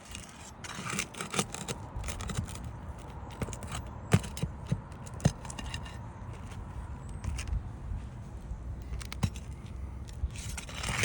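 A metal nail-removal tool scraping and clicking against brittle asphalt shingles and roofing nails as nails are worked loose under a shingle course. A few sharp clicks stand out, about 4, 5 and 9 seconds in.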